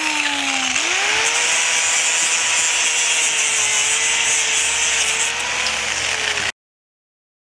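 Angle grinder with a cutting disc running: its whine sags in pitch as the disc cuts through the plastic rub-rail channel, recovers about a second in and then runs freely. The sound cuts off suddenly about a second before the end.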